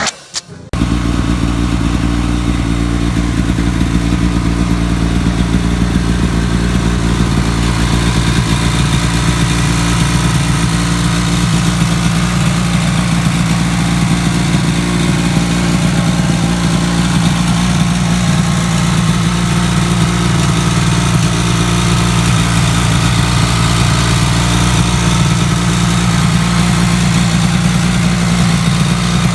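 Snowmobile engine running steadily at a constant speed. It starts about a second in, after a short break.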